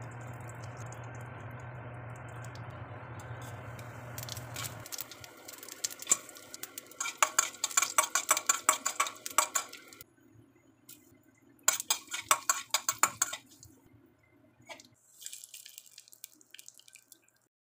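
Ghee sizzling steadily in a stainless steel pan over a low hum. About five seconds in, a tempering of mustard seeds, cumin, cashews and dried red chillies crackles and pops in the hot ghee in dense runs of sharp clicks, while a metal spoon stirs and scrapes the pan. The crackling comes again around twelve seconds in.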